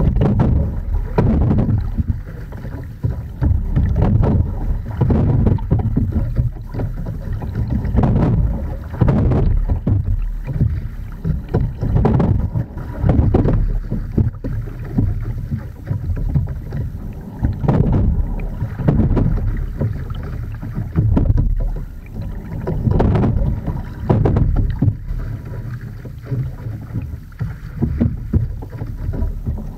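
Wind buffeting a boat-mounted microphone over the sounds of an Edon TS515 single scull being rowed: water splashing and rushing along the hull with each stroke, swelling about every four to five seconds.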